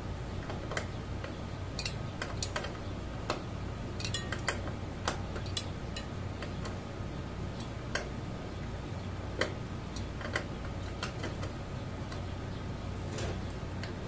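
Irregular sharp metallic clicks and taps of a hand wrench working the mounting bolts at the base of a mini-fridge compressor, over a steady low hum.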